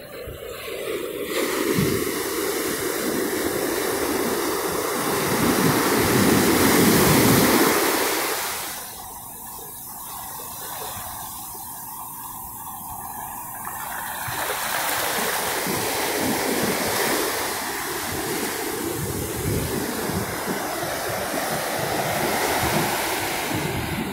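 Rough Pacific surf breaking and washing up the beach in a continuous rush of whitewater. It swells to a loud surge about seven seconds in, eases for several seconds, then builds again.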